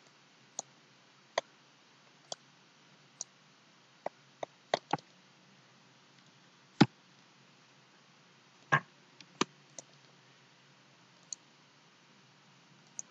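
Computer mouse clicks: about a dozen short, sharp clicks at uneven intervals, a few louder than the rest, over faint steady hiss.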